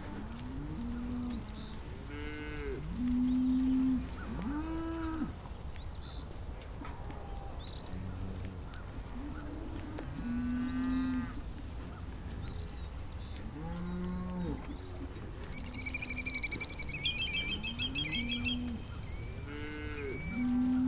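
Cattle mooing: several cows call one after another in long, low moos, some overlapping. Near the end a loud, high chirping call of quick repeated notes sounds over them, most likely a bird.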